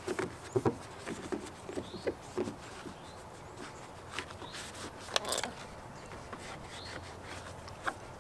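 Paper towel rubbing over the wet painted door panel where the mirror mounts, in short irregular wiping strokes, with a brief hiss about five seconds in.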